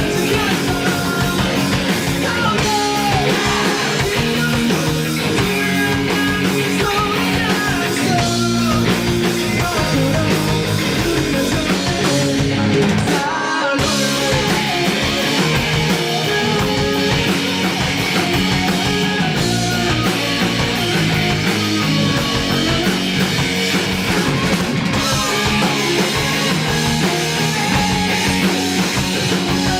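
A rock band playing live, with electric guitars, bass and drums. About 13 seconds in the band stops short for a moment, then comes back in.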